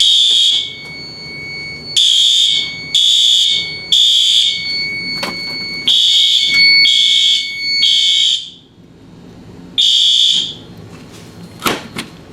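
Fire alarm sounder set off by a smoke detector tested with canned smoke, beeping a high tone in the temporal-three pattern: three beeps, a pause, repeated, with a fainter steady high tone under the middle groups. The beeping stops after one last beep about ten seconds in, and a few sharp clicks follow near the end.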